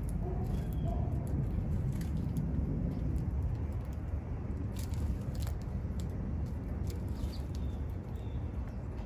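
Steady low outdoor rumble with a few faint, short bird chirps and several sharp clicks scattered through it.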